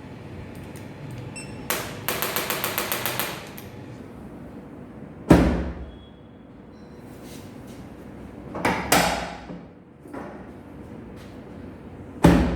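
Thuds and clicks during a chiropractic adjustment: a quick run of clicks, about eight a second, a couple of seconds in, then a heavy thud a little over five seconds in, a pair of thuds near nine seconds, and another near the end.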